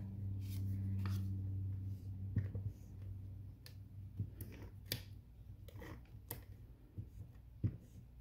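Paper, card stock and a tape-runner adhesive dispenser being handled on a table: scattered light clicks and taps. A low steady hum runs for the first two seconds or so, then fades.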